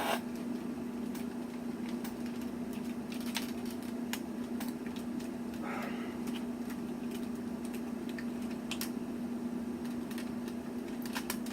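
Scattered light clicks and taps of plastic and die-cast toy parts being handled and pressed together as the Ninja Megazord and Falcon Zord figures are combined, with small clusters of clicks about three and a half seconds in and near the end. A steady low hum runs underneath.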